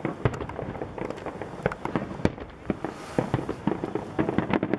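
Aerial fireworks shells bursting one after another in quick, irregular succession: a dense run of sharp bangs and pops.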